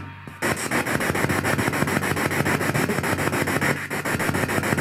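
Spirit box sweeping through radio frequencies: a loud hiss of static chopped into rapid, even pulses, about ten a second, over a steady low hum.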